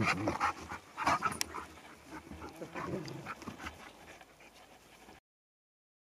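Dogs play-fighting and vocalising, loudest in the first second and a half. The sound cuts off abruptly about five seconds in.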